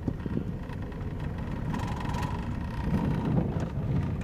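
Car driving on a rough back road, heard from inside the cabin: a steady low rumble of engine and tyres.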